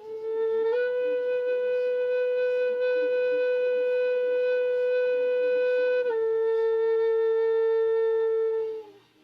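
Siyotanka, a Native American-style flute, sounding one long breath: a held note that steps up a little after about a second, holds for around five seconds, then drops back a step and holds until it fades out near the end.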